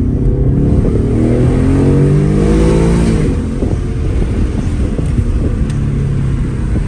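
Ford Mustang GT's 5.0-litre Coyote V8 accelerating hard, its exhaust note rising for about three seconds, then dropping off suddenly into an uneven rumble with scattered pops before settling to a steady lower drone.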